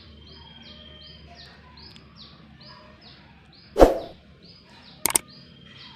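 Songbirds chirping in a quick repeated series of short, high, falling notes, about two to three a second. A loud knock sounds nearly four seconds in, and two sharp clicks follow about a second later.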